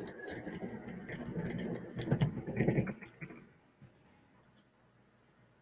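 Scratchy rustling with scattered clicks for about three seconds, then near silence.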